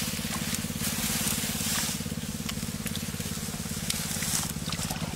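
A small engine running steadily at an even, fast pulse, with intermittent splashing of water.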